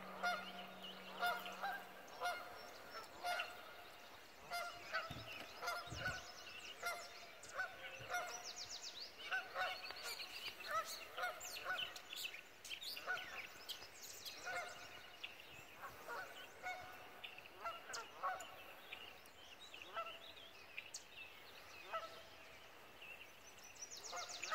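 Birds calling: many short, repeated honks, one or two a second and overlapping, with a few high, fast trills from songbirds.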